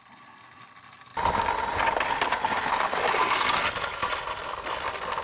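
Battery-powered Thomas & Friends TrackMaster toy engines running on plastic track: a steady motor whir with wheels rattling over the track joints. It starts suddenly about a second in.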